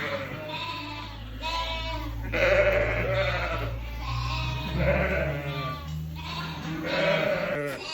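A penned flock of ewes and lambs bleating, with overlapping calls coming about one or two a second, some high and some lower-pitched. A low steady hum runs underneath and stops about five seconds in.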